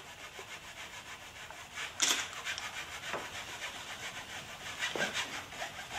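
Wide flat bristle paintbrush scrubbing paint across canvas in quick back-and-forth strokes, a dry rasping rub, with one louder stroke about two seconds in.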